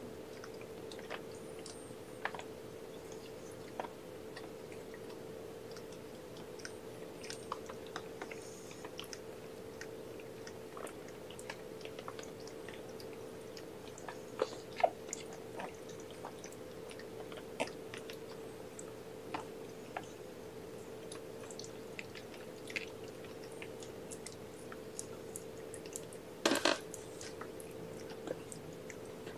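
Mother cat and young kittens licking and suckling: soft, scattered wet mouth clicks and smacks over a steady faint hum, with a louder brief rustle near the end.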